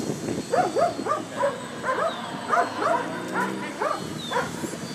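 Choir voices giving about a dozen short, scattered whooping yelps at differing pitches, some overlapping, rising and falling in pitch, as vocal effects in a choral arrangement of native Krahô chants.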